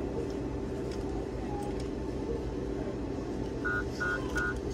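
A self-checkout card payment terminal gives three short electronic beeps in quick succession near the end, over a steady low hum.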